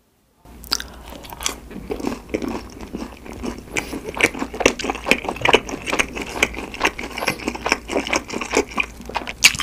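A person biting and chewing crispy McDonald's chicken nuggets, with crunching and chewing several times a second. It starts about half a second in.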